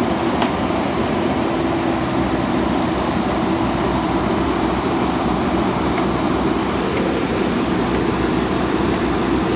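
JCB backhoe loader's diesel engine running steadily at a constant pitch.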